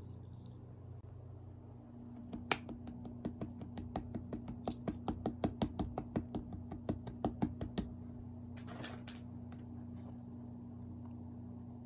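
Slime being pressed and worked by hand, giving a rapid run of small sharp clicks, about five or six a second, for some five seconds, then a short rustle. A steady low electrical hum runs underneath.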